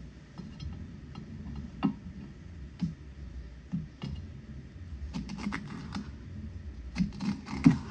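Chef's knife slicing a red bell pepper on a plastic cutting mat: light knocks of the blade hitting the board. They come singly and spaced out at first, then in quicker runs of several cuts about five and seven seconds in.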